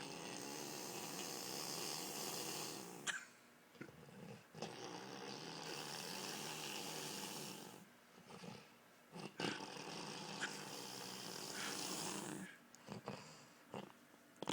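A man snoring heavily: three long rasping snores about four and a half seconds apart, with short snorts and catches in the gaps between them.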